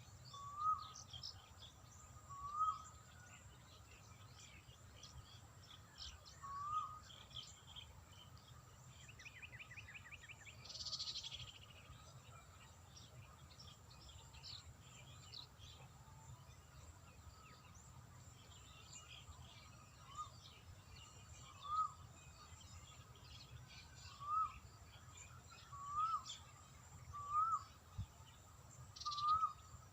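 A bird calling a short, rising, whistled note again and again, every second or two, with a long pause in the middle. Faint chirps and ticks of other birds or insects sound around it. About eleven seconds in there is a brief rasping call.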